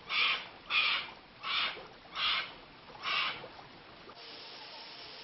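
A run of five rasping animal calls at a steady pace, about three-quarters of a second apart, stopping a little after three seconds in; then a steady hiss.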